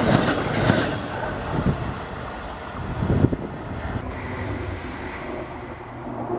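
A train passing: its wheels clack over rail joints, a little under two knocks a second, fading out about a second in. Then comes one more knock, and a steady low running hum that dulls as the train draws away.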